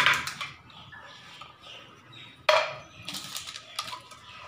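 Kitchen items being handled on a counter: two sharp knocks, one at the start and one about halfway through, each with a short ring, followed by a few lighter clicks.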